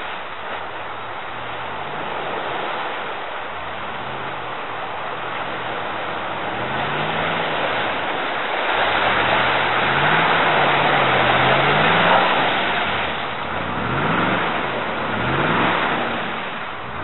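LPG-fuelled 5.2-litre V8 of a Range Rover P38 being driven hard, its engine note rising and falling several times from about a third of the way in. A dense rush of noise runs under it and is loudest about halfway through.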